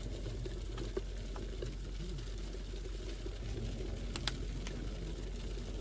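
Petromax Fire Kettle heating on its fire, with the water in its jacket boiling in a steady low bubbling hiss. A few faint clicks sound through it.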